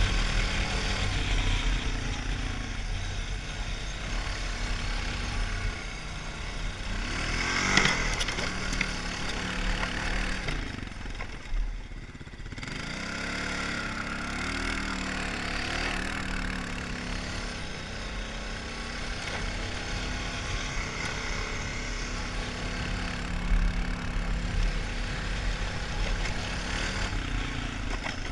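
Honda 450 ATV engine running under throttle on a snowy trail, revving up and easing off as it goes. It drops off briefly about 11 seconds in, then climbs again, with a steady low rumble of wind underneath.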